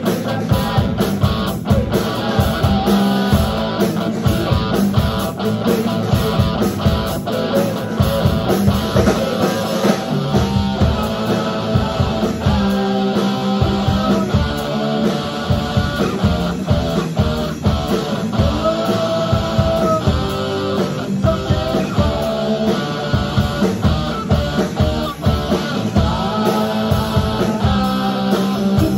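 Live rock band playing electric guitar, bass guitar and drum kit, with a steady driving beat throughout.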